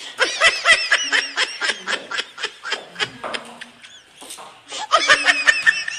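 High-pitched laughter in quick repeated bursts, in two bouts with a lull between them.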